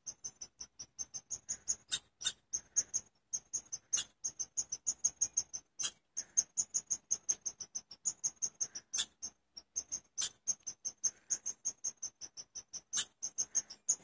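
Chipmunk chirping: a fast, even run of short, high-pitched chips, about five a second, with a sharper, louder chip every second or two.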